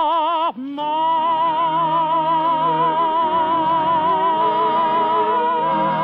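Male tenor singing the last words of a ballad with orchestra, then holding the final long note with a light vibrato from about a second in.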